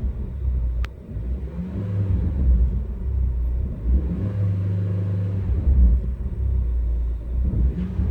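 Proton Preve CFE's 1.6-litre turbocharged engine running, its drone stepping up and down in pitch, with a sharp click about a second in. The car has an unexplained whine that a service centre put down to the turbo, though a turbo specialist found the turbo sound.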